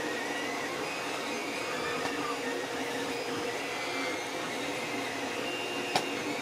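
A steady machine whir, like fans running, with faint steady tones and slowly gliding higher tones. A single sharp click comes near the end.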